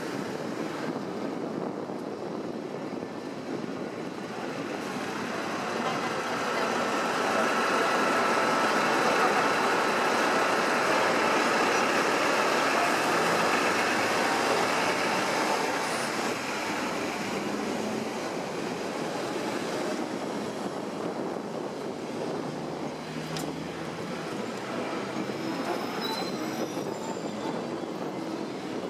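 Hong Kong double-decker tram running along street track, a steady rumble of steel wheels on the rails that grows louder for several seconds in the middle and then eases back.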